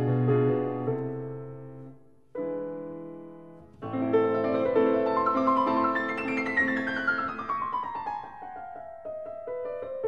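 Background piano music: held chords fade away, with a short break about two seconds in, then a new chord and a flowing passage with a long descending run of notes.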